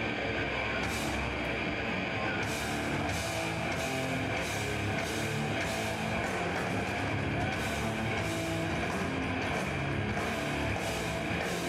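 Death metal band playing live: heavily distorted electric guitars and bass over a drum kit, with cymbals struck in a steady beat.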